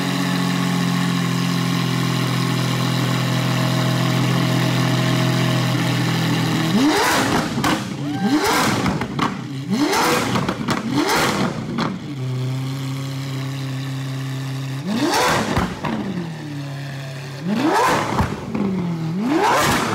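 Lamborghini Aventador SV's 6.5-litre V12 running cold at its first start after a rebuild. It holds a steady high idle, and from about seven seconds in it is given a series of quick throttle blips that rise and fall back, four close together, then one, then two more near the end. It is insanely loud even at idle and sounds super healthy.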